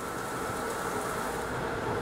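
XSharp tool-sharpening grinder running its automatic dressing cycle: the grinding wheel dressing the white dressing stone under spraying coolant, a steady wash of noise with a faint high whine.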